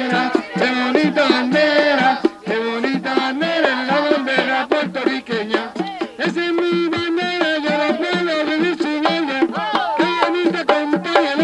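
Voices singing over a group of hand-held frame drums (panderos) beaten in a quick, steady rhythm.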